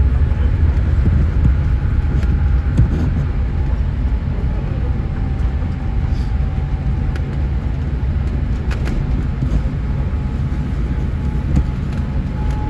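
Cabin noise inside an ANA Boeing 787-8 on its landing rollout: a steady low rumble of wheels and engines that eases gradually as the airliner slows, with a faint whine and a few light knocks.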